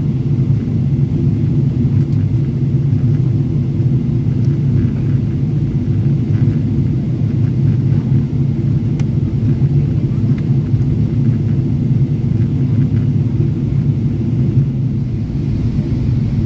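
Steady low rumble of jet airliner cabin noise, engines and airflow, heard inside the cabin during the descent.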